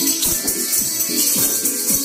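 Children's noise orchestra of shakers and tambourines playing in a steady beat, with a constant high rattling hiss over a pitched melody.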